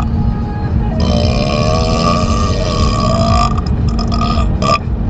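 A man burping inside a moving car. A short burp comes at the start, then a long drawn-out burp of about two and a half seconds with a wavering pitch, then a few short burps near the end. Steady road rumble from the car lies underneath.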